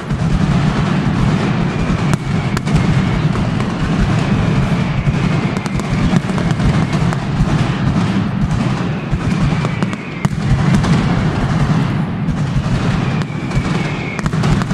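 Mascletà firecracker barrage: a dense, unbroken run of rapid loud bangs, with a brief dip about ten seconds in.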